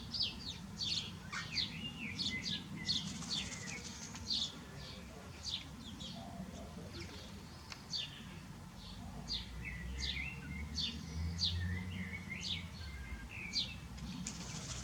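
Small birds chirping: a stream of short, sharp chirps that drop in pitch, roughly two a second, with softer twittering underneath.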